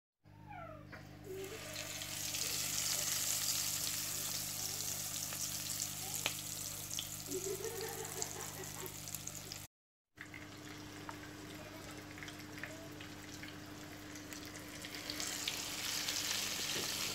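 Breadcrumbed chicken Kievs shallow-frying in hot oil in a frying pan: a steady crackling sizzle, loudest about two to four seconds in and again near the end, cutting out briefly just past halfway. A steady low hum runs underneath.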